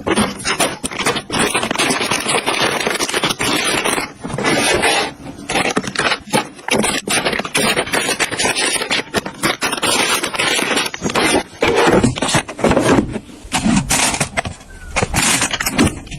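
Busy, irregular scraping and rustling with many short knocks and clatters, from objects being handled and moved about.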